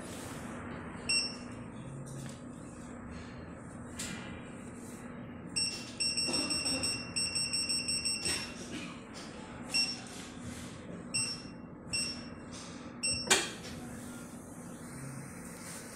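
Touchscreen control panel of a Jinka A491 cutting plotter beeping at each key press: a single beep, then a quick run of about a dozen beeps, then several more single beeps, over a low steady hum. A sharp click near the end is the loudest sound.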